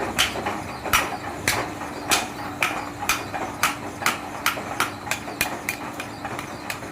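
Hammer striking metal in a blacksmith's forge work, about sixteen sharp ringing blows. The blows quicken from about two a second to about three a second, over a steady low hum.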